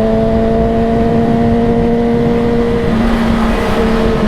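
Motorcycle engine running at a steady high speed, with wind rumbling on the microphone. The pitch dips slightly about three seconds in.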